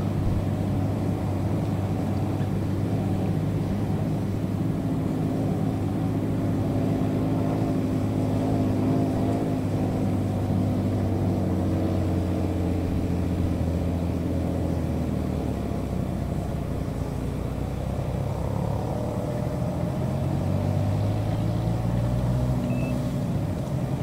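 A low, steady engine hum, several tones together whose pitch drifts slowly up and down.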